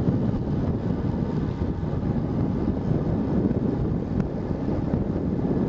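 Wind rushing steadily over the microphone of a camera moving along a road, a low rumbling noise with no distinct tones.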